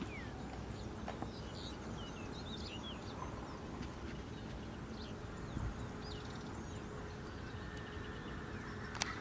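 Open-field ambience: a steady low background rumble with scattered faint bird chirps, and one sharp click near the end.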